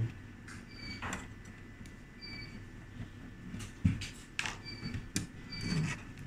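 Screws being taken out of a stainless-steel control box with a small screwdriver and its sheet-metal cover lifted off: a string of small clicks and metal knocks, the sharpest about four seconds in. Faint short high chirps recur about once a second.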